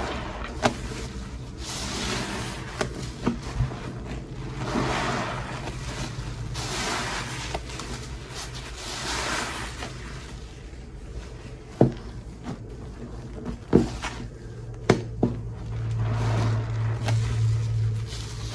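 Soap-loaded sponge squeezed by hand in a bowl of thick dish-soap foam: a wet, frothy squelch every couple of seconds, with sharp wet clicks in between. A steady low hum runs underneath.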